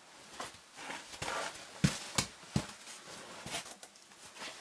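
Scuffing and scraping of clothing and gear on sandstone as a caver slides down a narrow cave passage, with several sharp knocks, three of them close together about two seconds in.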